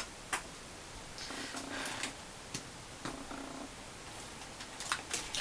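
A few sharp clicks of die-cast and plastic parts on a GX-72 Soul of Chogokin Daizyuzin figure being handled and shifted into tank mode, with soft breathy sounds in between.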